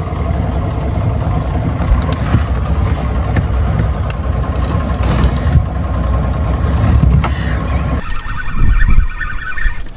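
Boat motor running steadily with a low rumble, which cuts off abruptly about eight seconds in.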